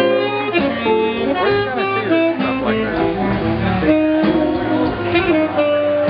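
Live jazz band playing an instrumental passage of a slow tune, with electric guitar and saxophone carrying the melody over drums.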